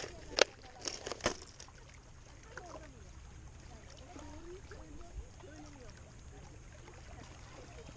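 Clear plastic tackle box of lures handled, with a few sharp plastic clicks and rattles in the first second and a half, then quieter handling of a soft-plastic lure. A low steady rumble of water and wind runs underneath.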